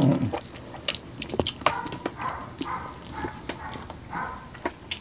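Close-up eating sounds of two people chewing and sucking on soft braised chicken feet: wet lip smacks and sharp mouth clicks, coming irregularly.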